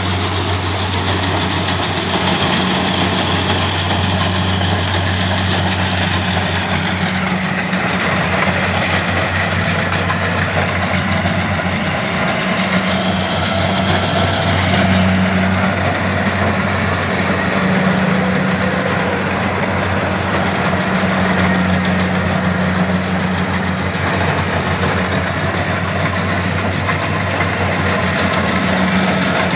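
Rice combine harvester's diesel engine running steadily with a constant low hum and mechanical clatter, working in a muddy paddy field.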